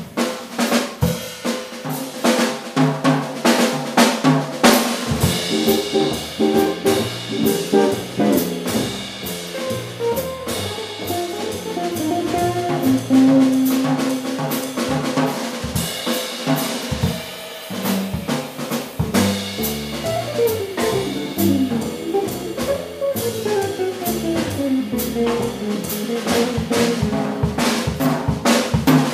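Live jazz trio of electric guitar, upright double bass and drum kit playing, with the drums to the fore: snare, bass drum and cymbal strokes over plucked bass notes and guitar lines.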